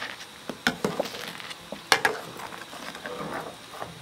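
Metal spoon stirring thickening sweet potato starch paste in a stainless steel pot, scraping round the pot and clinking against its sides several times, loudest about two seconds in. The paste is stirred constantly so it does not stick to the bottom while it cooks to translucent.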